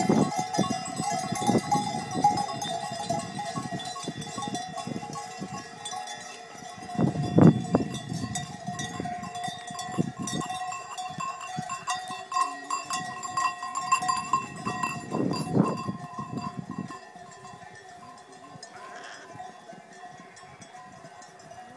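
Bells worn by a passing flock of sheep ringing and clanking without a break, with several brief louder low sounds, the loudest about seven seconds in. The ringing grows quieter about three-quarters of the way through.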